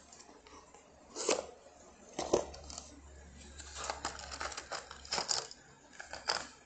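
Metallic clicks and knocks from a manual mini nail gun and its small steel concrete nails being handled: two sharp knocks about a second apart, then a quick rattle of clicks, then a few more sharp clicks near the end.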